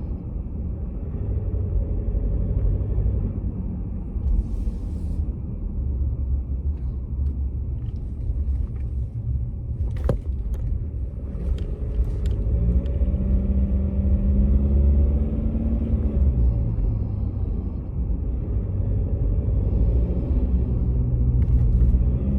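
Ford Ranger WildTrak's 2.0-litre bi-turbo diesel engine running with a steady low rumble, which the owner presents as an abnormal noise. A sharp click comes about ten seconds in, and a steady hum joins the rumble for a few seconds after that.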